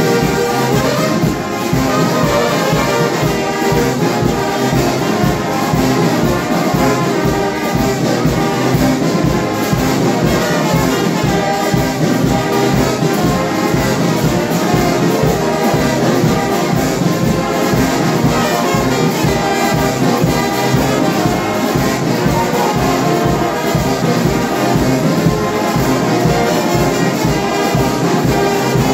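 Brass band music: trumpets and trombones playing held chords over a steady drum beat.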